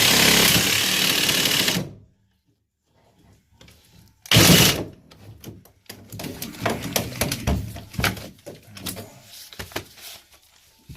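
Power saw with a metal-cutting blade running steadily through cast iron drain pipe, then cutting off abruptly about two seconds in. A single loud short burst follows a couple of seconds later, then scattered knocks and clatter of handling the pipe and tools.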